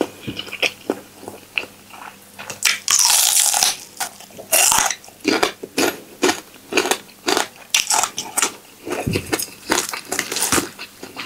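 A person eating spicy instant-noodle salad with pork sausage: chewing with irregular wet smacks and clicks of the mouth. There is a longer hissing slurp about three seconds in and a shorter one near five seconds.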